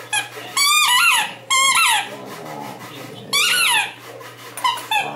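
Rubber squeaky bone toy squeaking as a dog mouths it: three drawn-out squeaks, each bending in pitch, with shorter squeaks at the start and near the end.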